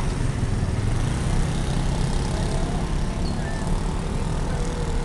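Steady low rumble of road vehicles and engines, with no single event standing out.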